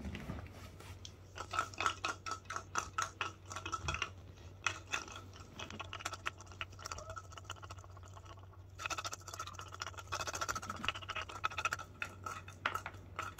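Dry cat treats rattling inside the clear plastic ball of a spring-mounted treat-dispenser toy as a cat bats it about, in several runs of rapid clicking and clinking.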